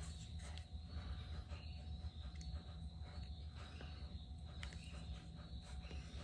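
Faint steady chirping of crickets, with a low background hum and a few small clicks of parts being handled.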